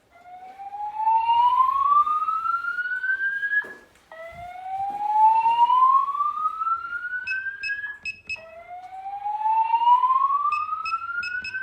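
EST-3 voice-evacuation fire alarm speakers sounding the slow whoop evacuation tone: three rising whoops, each climbing steadily in pitch for nearly four seconds, back to back. In the second half a quick series of short high beeps sounds twice.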